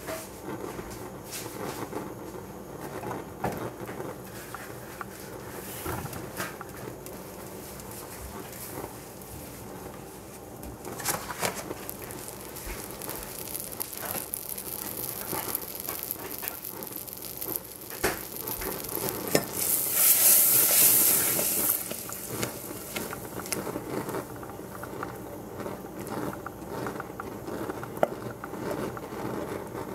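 Butter melting and sizzling in a stainless steel saucepan over a high gas flame, with scattered crackles. About two-thirds of the way through a louder hiss rises for about two seconds.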